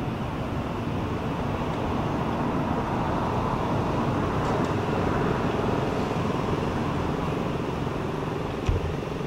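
Steady outdoor rumble of road traffic, swelling in the middle as a vehicle passes, with a short low thump near the end.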